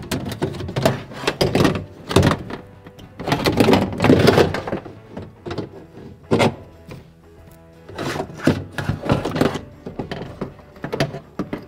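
Irregular metal clunks and rattles as a power window regulator's rails, cables and motor are handled and fitted against the door's sheet-metal inner panel, over background music.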